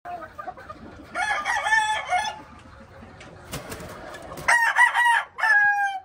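Gamefowl roosters crowing: one crow about a second in, and a second crow near the end whose long held final note is cut off suddenly.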